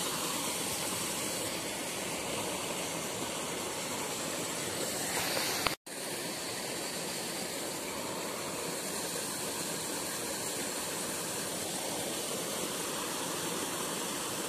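Steady hiss of running water, with one brief total dropout about six seconds in.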